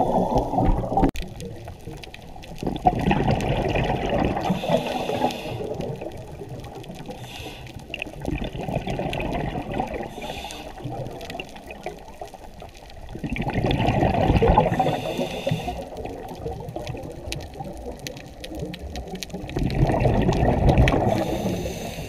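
Scuba diver's exhaled bubbles gurgling out of the regulator, heard underwater, in surges about every five to six seconds with a quieter wash of water between breaths.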